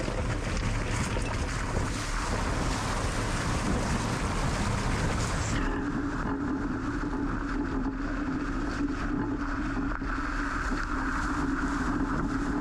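A vehicle drives through a shallow rocky creek: water rushes and splashes with a motor running underneath. About halfway through, the hiss of the water drops away sharply and a steady low hum is left.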